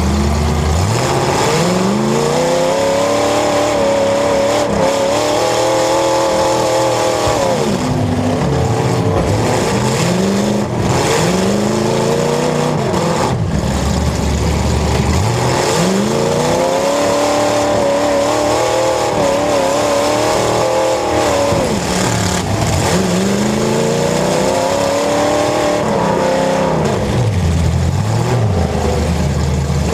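Demolition derby cars' engines revving hard, the pitch climbing, holding at high revs for a few seconds, then dropping back, about four times, as the cars accelerate and reverse around the arena.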